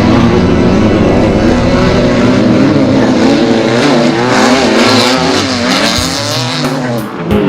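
Off-road race vehicle engine running hard, its pitch rising and falling as the throttle opens and closes.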